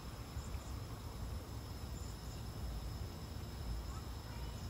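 Steady hiss of water spraying from a vintage Nelson Dial-A-Rain oscillating sprinkler onto a lawn, over a low rumble, with a thin steady high tone.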